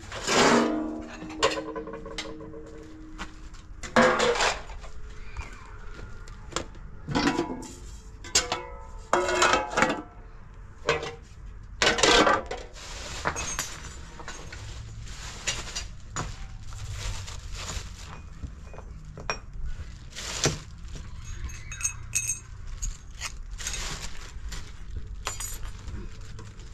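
Irregular clinks and clanks of hard objects being handled and knocked together, a dozen or more strikes spread out, the loudest near the start and about 4 and 12 seconds in. A few strikes ring on briefly with a clear tone, like metal or crockery.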